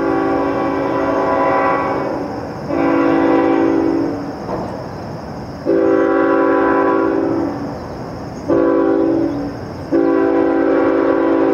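Diesel freight locomotive's air horn sounding a chord of several notes in five blasts: three long ones, then a short one and a final long one, as the approaching train signals through the station.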